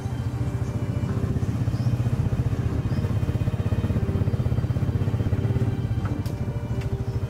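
A small engine runs steadily at a low speed with a fast, even pulse and no change in pace.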